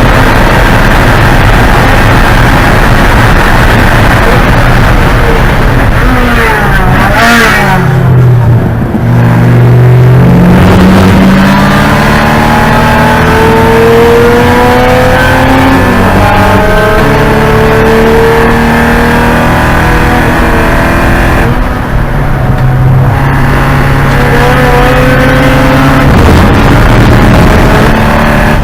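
Porsche 944 Spec race car's four-cylinder engine running hard at racing load. The engine note drops steeply about seven seconds in as the car slows and downshifts, then climbs in rising sweeps through the revs under acceleration, with a short lift about twenty-two seconds in before it pulls again.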